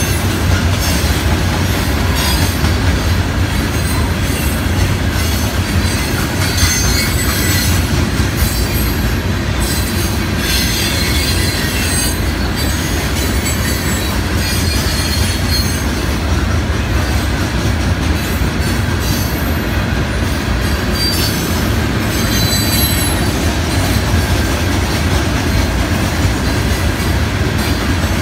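Loaded hopper cars of a 106-car freight rock train rolling past: a steady, loud rumble of steel wheels on rail, with brief high wheel squeals now and then.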